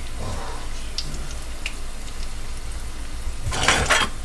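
Egg rolls deep-frying in a pot of hot oil, a steady sizzle, with a brief loud burst of noise lasting about half a second near the end.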